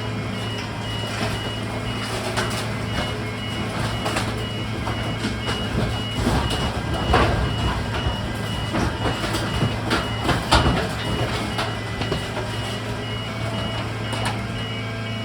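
Garbage truck's reversing alarm beeping in a steady repeating pattern over the diesel engine running, with a run of loud clattering knocks in the middle.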